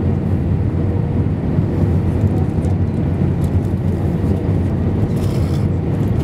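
Steady cabin noise of an Airbus A319 airliner on approach with flaps extended: the low rumble of engines and airflow heard from a window seat over the wing, with a faint steady hum.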